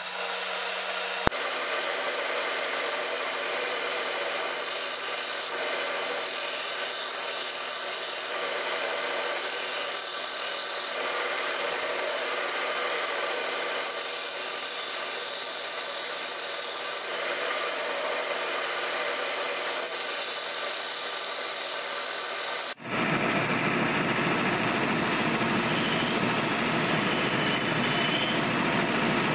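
Belt grinder running with an N690 steel knife blade held against the belt over its contact wheel, grinding the bevels: a steady grinding noise. A sharp click comes about a second in, and about three-quarters through the sound breaks off for an instant and comes back with more low rumble.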